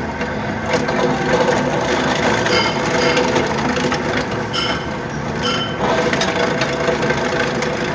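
Electric garlic slicing machine running: a steady motor hum under a continuous clatter of small clicks and clinks.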